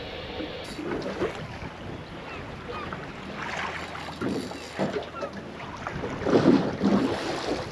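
Water slapping and splashing irregularly against the hull of a small boat, with wind buffeting the microphone; the biggest splash comes about six and a half seconds in.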